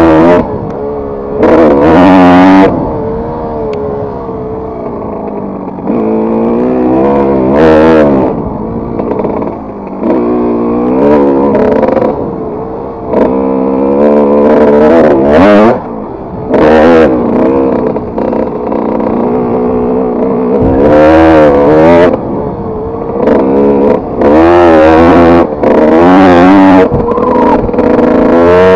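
Kawasaki KX125 two-stroke single-cylinder motocross engine under riding load, revving up and easing off again and again, its pitch rising and falling. Short, very loud stretches come several times.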